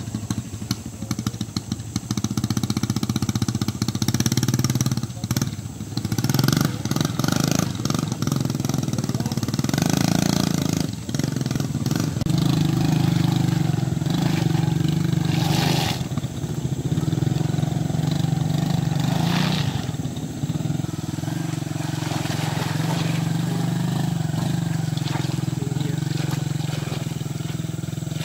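Small motorcycle engines running at low speed and revving up and easing off with the throttle as they are ridden over muddy ground. A few sharp knocks.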